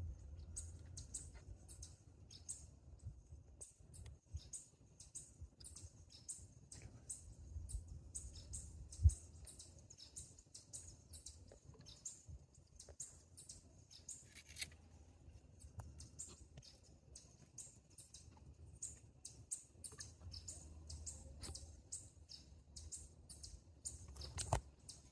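Small birds chirping: quick, high, faint chirps repeating all through, over a low rumble, with a single sharp thump about nine seconds in.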